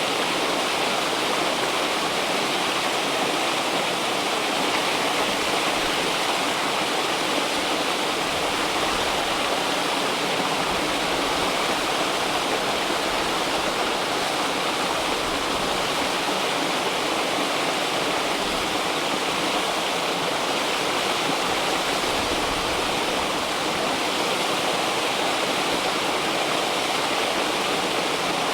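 A river's flowing water rushing steadily, an even unbroken wash of sound.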